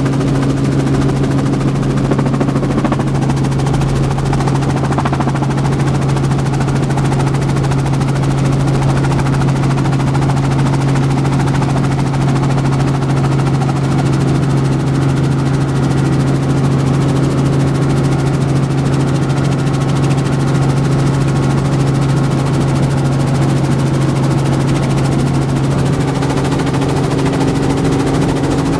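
Helicopter heard from inside the cabin in flight: a loud, steady engine and rotor drone with a fast, even rotor beat.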